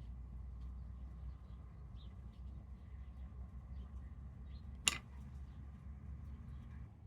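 Low steady background rumble with faint scattered chirps and ticks, and one sharp click about five seconds in.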